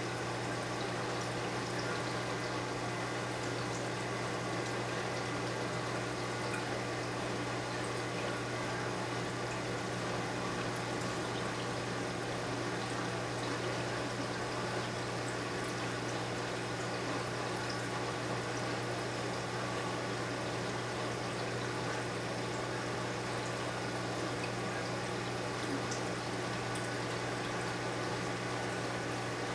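Home reef aquarium running: a steady wash of trickling, splashing circulating water over a constant low hum from the tank's equipment.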